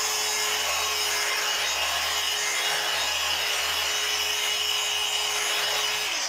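Handheld polisher with a medium pad running on a motorcycle's painted gas tank, buffing out a light haze with compound glaze: a steady motor whine over a rubbing hiss, with the motor winding down near the end.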